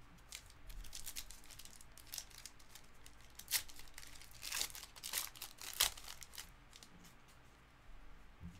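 Foil trading-card pack wrappers being torn open and crinkled by hand, in scattered short crackles, the loudest a few seconds in.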